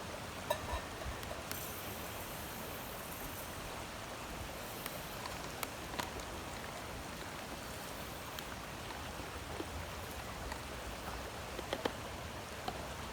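Creek water flowing steadily, with a few faint clicks and knocks scattered through it.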